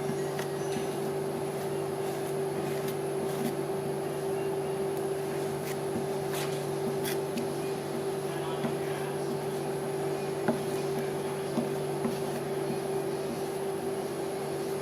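Steady electric hum of a rolled-ice-cream freezing plate, with scattered light clicks and taps of metal spatulas working on the plate, two sharper taps a little past the middle.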